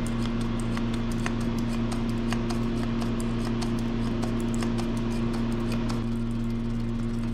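Quick, irregular run of small light clicks as tiny preservative pills are dropped from a bottle into plastic milk sample vials, over a steady hum.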